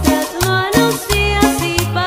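Cumbia sonidera music: a steady dance beat over a bass line stepping between held notes, with a melody on top.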